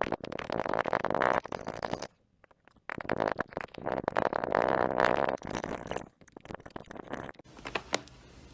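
Slime being squished and worked by hand, making dense wet crackling and popping. There are two long stretches of it with a short pause about two seconds in, then a few scattered clicks near the end.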